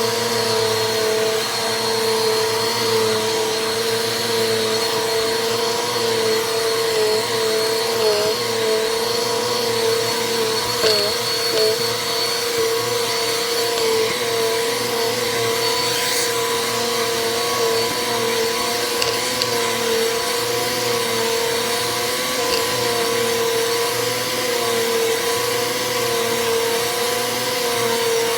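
Bissell vacuum cleaner running steadily with a constant motor whine and rushing airflow; the pitch wavers briefly a couple of times partway through.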